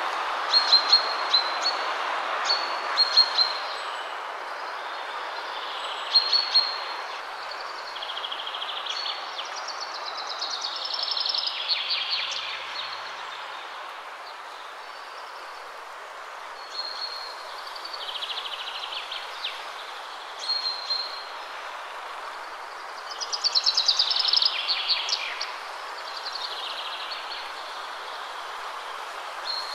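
Birds singing: repeated short high chirps and, twice, a longer falling trilled phrase, over a steady hiss-like background.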